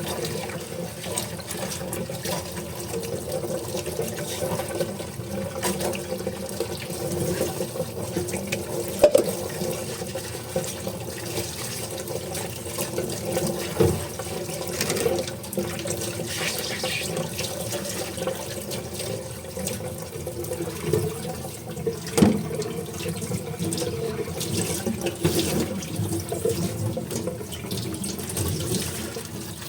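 Tap water running into a sink while dishes are washed, with occasional sharp clinks of dishes knocking together.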